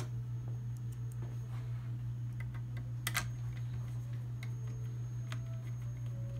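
Small scattered clicks and ticks of a screw being handled and driven in with a hand screwdriver, with one sharper click about three seconds in, over a steady low hum.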